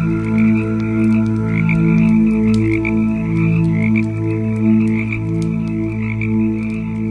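A chorus of frogs croaking in long, overlapping calls, with sharp crackles and pops from a wood fire scattered throughout.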